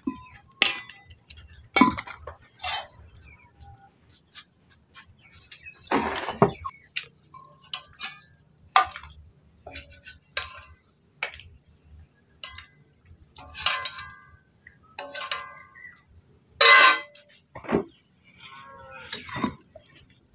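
A metal spoon clinking and scraping against a metal cooking pan and small steel bowls as curry is served out: an irregular series of sharp clinks, some ringing briefly, with the loudest one about three-quarters of the way through.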